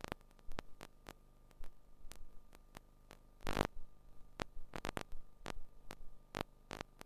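Blank videotape playing back: irregular crackles and clicks over a faint steady hum and a thin steady tone, with the loudest crackles about three and a half seconds in.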